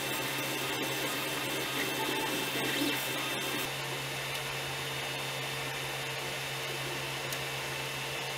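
Creality Ender 3 3D printer printing. For the first few seconds, on the stock mainboard, the stepper motors make a busy, shifting noise with a few ticks over the steady fan hum. About three and a half seconds in, it changes to the printer running on a BigTreeTech SKR Mini E3 board with TMC2209 stepper drivers: the motors are almost silent, and the slightly quieter, steady hum of the cooling fans is left as the main noise.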